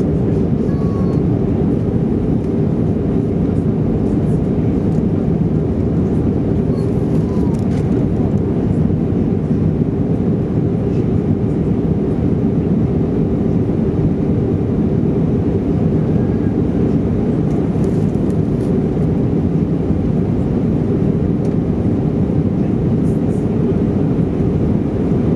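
Steady cabin drone inside an Alitalia Airbus A320 climbing after takeoff: engine and airflow noise heard from a window seat over the wing, deep and unchanging in level.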